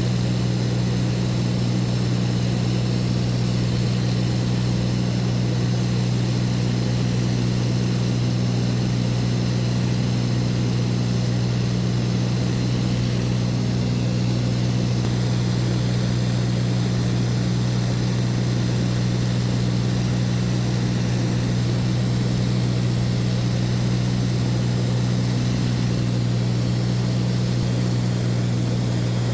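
Light aircraft's propeller engine droning steadily and evenly, the constant cabin noise of a small plane in flight.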